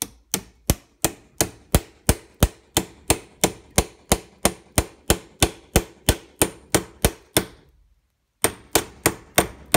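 Hammer tapping a tube on the inner race of a new rear bearing, driving it onto the rotor shaft of a Bosch alternator. Sharp, evenly spaced metal taps about three a second, a short pause near the end, then a few more taps.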